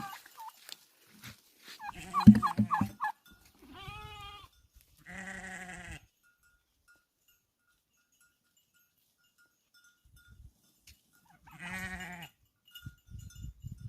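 Goats bleating: three wavering bleats, at about four, five and twelve seconds in, with a long quiet gap before the last. About two seconds in comes the loudest sound, a quick run of sharp pulsed calls.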